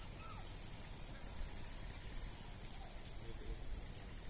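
Crickets trilling in one steady, unbroken high-pitched drone, over a low rumble.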